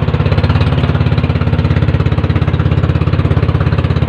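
Fishing bangka's engine running steadily under way: a loud, rapid, even chugging.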